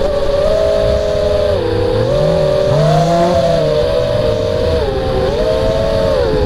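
FPV quadcopter's brushless motors and propellers whining, heard from the camera on the quad itself, the pitch dipping and climbing again several times as the throttle changes.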